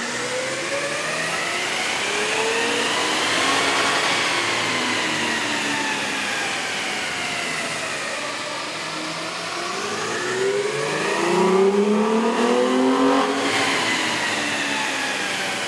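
Toyota Tacoma 4.0L V6 engine revving up and back down twice under load on a chassis dyno. The first run is through the stock intake and the second, louder one through a K&N 63-9025 cold air intake.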